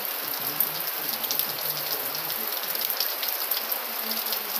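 Heavy rain falling steadily on a clay-tile roof, a dense even hiss with many small sharp drop clicks.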